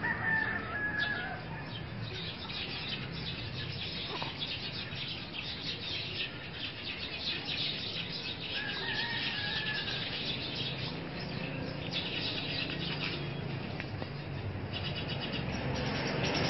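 Birds chirping in dense, rapid trills, with two longer calls near the start and about nine seconds in, over a steady low hum.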